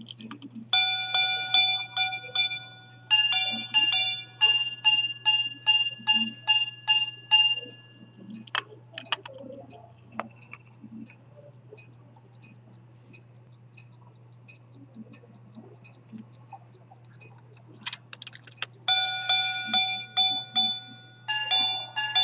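Century-old minute-repeater pocket watch striking the time on its gongs: a run of lower-pitched strikes, then a faster run of higher-pitched ones, each ringing briefly. Its faint ticking shows in the lull, and a second striking sequence starts a few seconds before the end.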